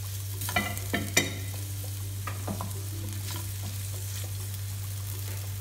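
Wooden spatula stirring and scraping sliced red onion and garlic in melted butter in a stainless steel frying pan, with a light sizzle. A few sharper scrapes or knocks against the pan come about half a second to a second in, over a steady low hum.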